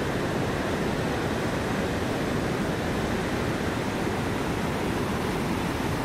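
River rapids rushing over rock ledges: a steady white-water roar with no breaks.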